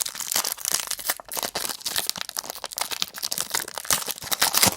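Trading-card pack wrapper crinkling and tearing as it is opened, a dense run of rapid crackles that thins out just after.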